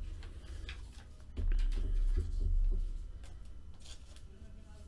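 Clear plastic wrapping crinkling and rustling as it is handled, with several light clicks and a few dull bumps about a second and a half in.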